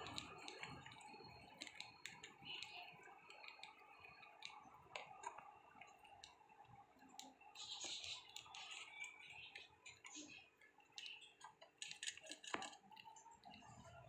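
Faint, irregular clicking and rustling of young budgies pecking at and tearing fresh leafy greens with their beaks.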